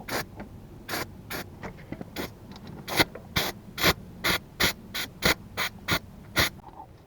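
Trigger spray bottle of degreaser squirted again and again onto greasy parts: about fourteen short hissing sprays, coming faster, about three a second, in the second half, then stopping.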